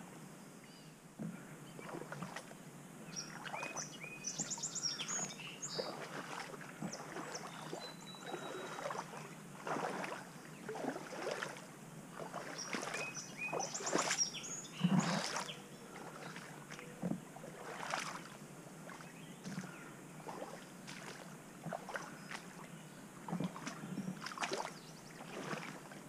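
Irregular rustling, brushing and scuffing of someone moving through creekside grass and brush while handling a fishing rod. A songbird sings short phrases a few seconds in and again about halfway through.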